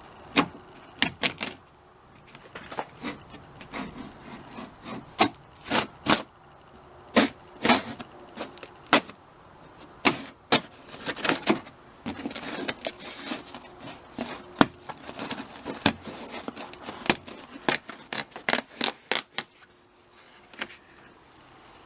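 Hand tools working on a car door's inner frame: irregular sharp clicks and taps, with a stretch of rubbing and scraping about halfway through.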